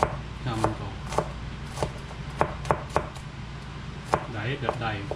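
Knife chopping on a cutting board: sharp, unevenly spaced strokes, roughly one to two a second.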